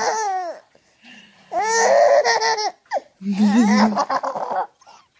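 A baby laughing in high-pitched peals. One laugh trails off just after the start, then come two long bursts of laughter with a short catch of breath between them.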